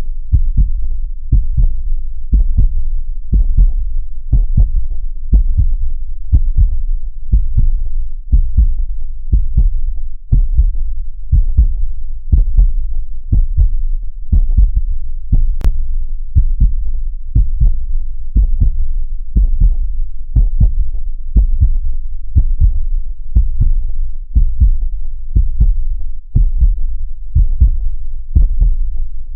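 Heartbeat sound made to mimic what a baby hears in the womb: a steady, low, muffled double beat (lub-dub) repeating evenly throughout.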